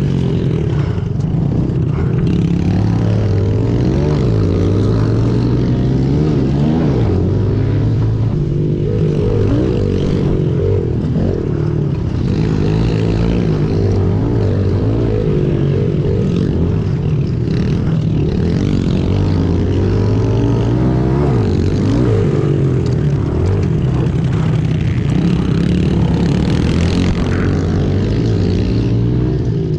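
Small pit bike engine heard from on board while racing, revving up and falling back again and again as the rider throttles through the dirt track's turns and straights, with another pit bike close ahead.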